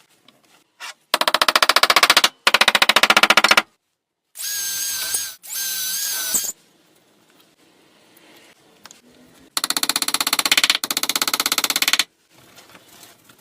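Electric drill running in short bursts of a second or two, boring into wood: a fast, even rattle in some bursts and a steady whine in others.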